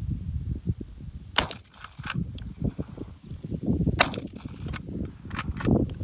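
Several .38 Special shots from an Uberti 1873 Winchester lever-action short rifle, fired a couple of seconds apart, the loudest about one and a half and four seconds in, over a steady low rumble.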